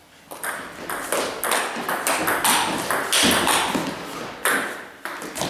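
Table tennis rally opening with a serve: the celluloid ball clicks off the rubber-faced bats and bounces on the table in quick alternation, several sharp ticks a second.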